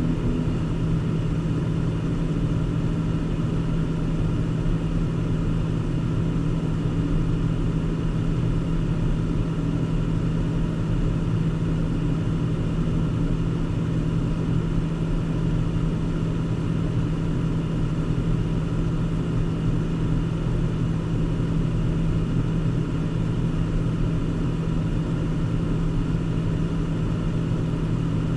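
Steady drone of a car being driven, heard from inside the cabin: an even engine hum with road and tyre noise, unchanging throughout.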